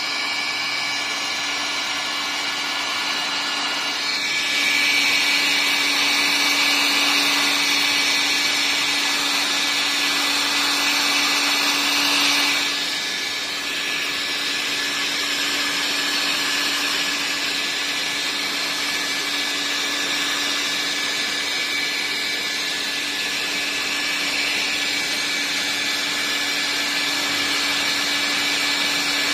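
Electric heat gun running steadily, its fan motor humming under a high rush of air, as it warms filler on a fibreglass boat hull that has stayed tacky in the cold. It grows louder about four seconds in, then drops back after several seconds.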